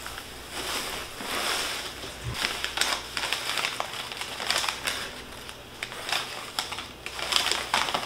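Shredded newspaper packing rustling and crinkling as hands dig through it and pull out a newspaper-wrapped plant, with many small irregular crackles.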